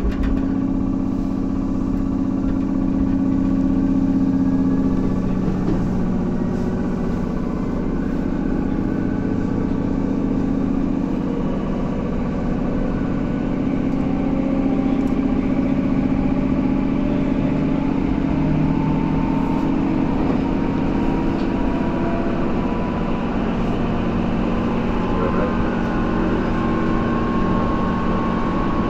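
Tobu 10000 series electric train running, heard from on board: a steady hum and rumble of the running gear on the rails, with a fainter whine that shifts slightly in pitch in the second half.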